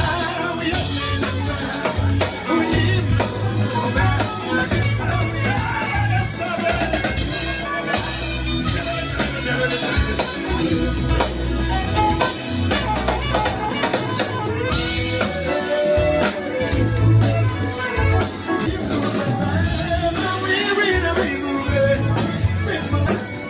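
Background music with a steady bass beat and busy percussion hits.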